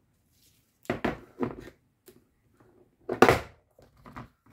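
Clear plastic storage case of small ink pads set down on a cutting mat and its hinged lid opened: a few sharp plastic clacks and rattles, the loudest about three seconds in.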